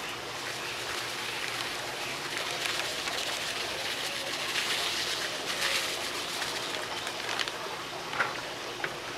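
Thin plastic bag crinkling as dry barbecue rub is shaken out of it onto raw pork ribs in a metal pan, with a fine patter of falling granules. It is busiest around the middle, and two sharp ticks come near the end.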